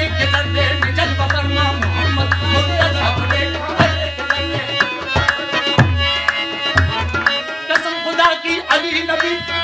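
Qawwali accompaniment: a harmonium plays sustained chords and melody over a steady tabla rhythm. A few deep bass-drum strokes slide down in pitch around the middle.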